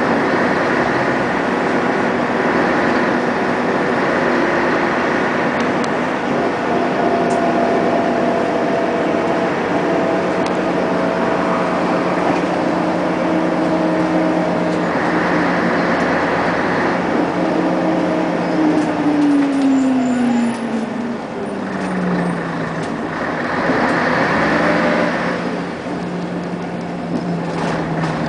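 Inside a 1996 Scania CN113CLL city bus under way: its diesel engine and drivetrain run with steady whining tones, the drive-axle whine this bus is known for. The tones fall in pitch about two-thirds of the way through as the bus slows, over constant road noise.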